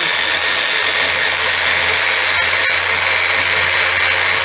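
Small electric mini chopper running steadily, its motor whirring as it purees a tomato.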